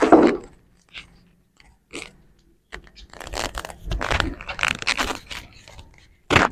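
Goat chewing close to the microphone: a few faint clicks, then a run of irregular crunching from about three seconds in.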